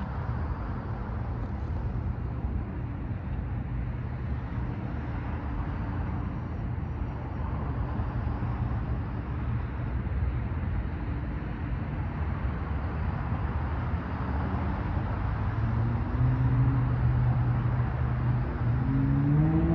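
Straight-piped 2008 Acura TL V6 exhaust, with the resonator and mufflers removed but the catalytic converter kept, rumbling as the car approaches and growing louder. Near the end its pitch starts rising as the engine revs up.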